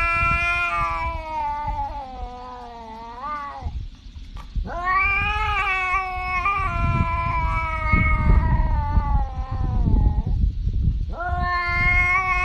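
Tabby cat yowling: three long, drawn-out wailing calls with short breaks between them, the middle one the longest.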